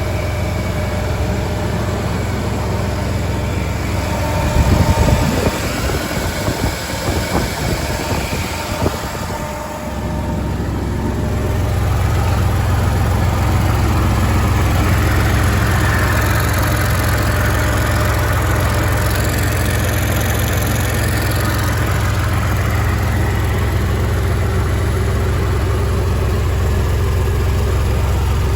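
GMC Sonoma pickup's exhaust, with a catalytic-converter test pipe and a generic muffler, running at idle. The note turns uneven and pulsing for a few seconds about a third of the way in, then settles into a steady, slightly louder idle drone.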